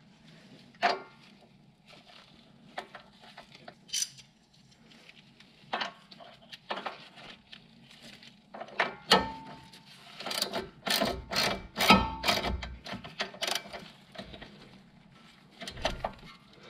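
Hand ratchet clicking in short runs as a bolt is run in, the runs clustering about halfway through, with scattered taps of metal tools before and after.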